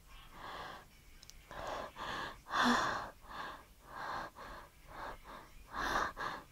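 A woman's rapid series of breathy gasps and sharp in-breaths during a sneezing fit, about a dozen in all, the loudest about two and a half seconds in and another near the end.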